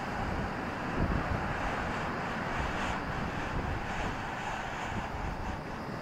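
Rough sea surf breaking and washing onto the shore in a steady rush, with wind buffeting the microphone.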